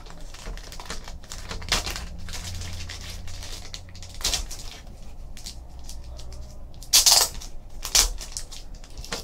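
Black plastic pack wrapper crinkling and rustling as it is opened and pulled apart by hand, with a few sharp crackles and clacks, the loudest about seven and eight seconds in as a hard plastic graded-card slab is drawn out and handled.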